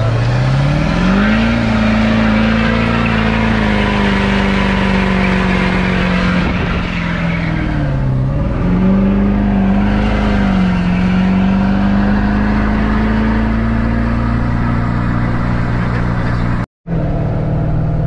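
LB7 Duramax 6.6-litre V8 turbodiesel pulling a pickup down the road, heard from inside the cab. It revs up over the first second or so and holds a steady drone, dips in pitch and comes back up about halfway through, then settles a little lower and runs steady. A brief dropout comes near the end.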